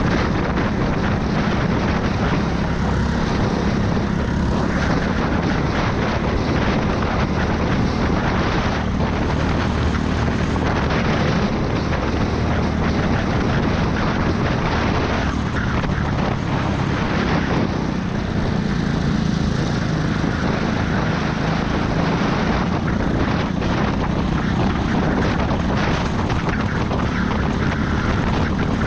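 Racing go-kart engine running hard at speed, heard from on board, its note dipping and rising a little with throttle through the corners, with wind rushing over the camera microphone.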